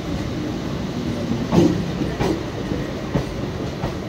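Electric suburban local train (EMU) running past close by on the adjacent track: a steady rumble with a few irregular clunks from its running gear.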